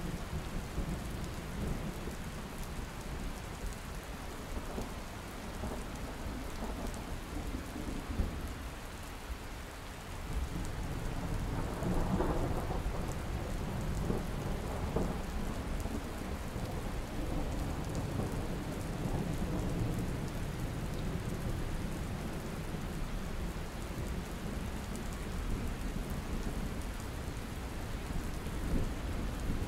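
Thunderstorm: steady rain falling, with a roll of thunder that swells about ten seconds in and rumbles on for several seconds.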